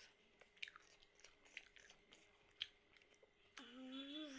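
Close-up eating sounds: soft chewing of noodles with scattered small mouth clicks. About three and a half seconds in, a voice starts humming a steady, slightly wavering note.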